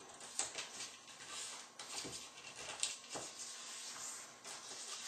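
A sheet of paper being folded and creased by hand along a printed line, rustling with several short sharp crackles.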